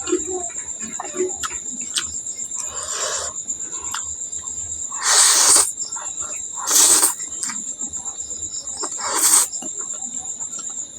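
Crickets chirring steadily in the background, behind close eating sounds: soft chewing clicks and four short loud slurps of spicy noodles, about 3, 5, 7 and 9 seconds in, the one at 5 seconds the loudest.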